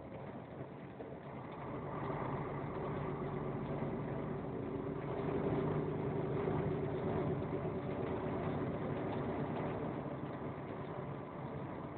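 A vehicle's engine running steadily while driving, with tyre noise on a wet road, getting louder about two seconds in.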